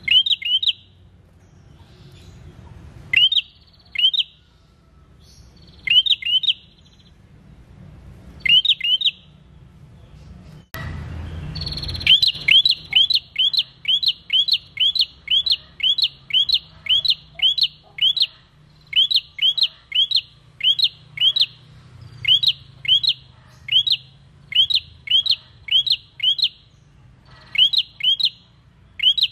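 Rufous-headed prenjak singing: sharp, high chirps, first in twos and threes with short pauses, then from about halfway a fast unbroken run of chirps, two or three a second.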